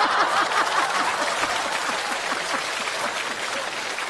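Studio audience applauding and laughing after a punchline. The laughter is heard mostly in the first couple of seconds, while the clapping carries on and slowly eases off.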